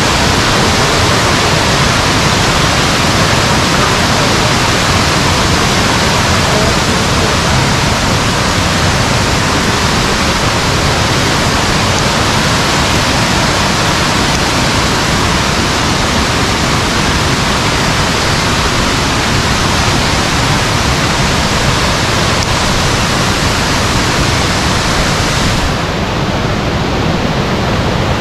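Waterfall pouring down, a loud, steady rush of water with no breaks; the highest hiss thins a little near the end.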